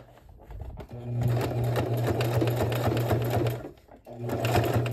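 Home electric sewing machine stitching through layers of leather and lining fabric: a steady run of about two and a half seconds, a brief stop, then a shorter run near the end.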